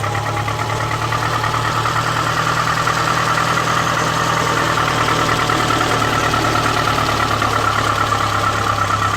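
Renault Espace III 2.0 petrol engine idling steadily with a light, fast ticking, which the owner puts down to play in a valve.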